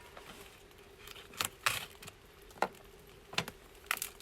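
Clicks and knocks of camp cooking gear being handled, about five short sharp sounds spread over a few seconds, over a faint steady hum.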